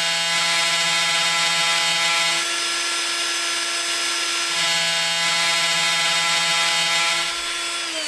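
Small DC spindle motor of a 3018 desktop CNC router running at about 20,000 RPM with a steady high whine, a lower hum dropping out and coming back midway. It begins to wind down right at the end.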